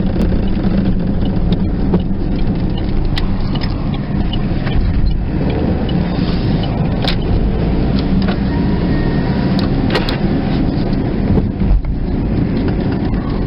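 Road noise inside a moving car's cabin: a steady low rumble with scattered small clicks and rattles.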